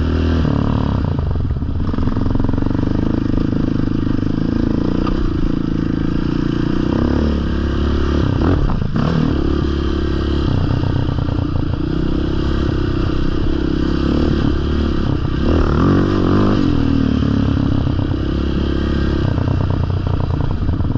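Sport ATV engine running under throttle on a dirt trail, its pitch rising and falling as the rider opens and closes the throttle, with clear surges about eight and fifteen seconds in.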